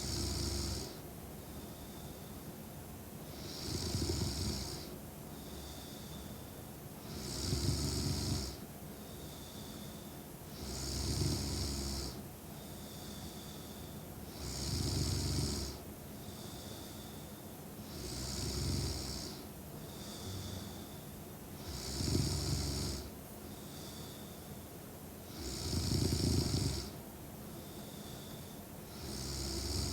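A sleeping woman snoring steadily, one snore on each in-breath about every three to four seconds, nine in all, with a faint thin whistle on the breaths between.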